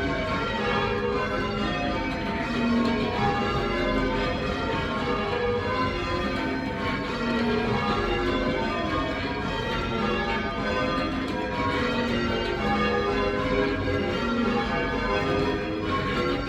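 A light ring of eight church bells (7 cwt tenor, nominally in G; back six cast by John Warner & Sons in 1887, front two by Mears & Stainbank in 1890) being rung in changes, one bell after another in a steady, unbroken rhythm. The bells sound rather shrill.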